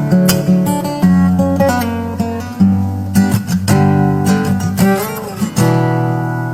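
Acoustic guitar playing: a run of plucked notes and strummed chords, each note starting sharply and fading, with one note bending in pitch about five seconds in. No singing.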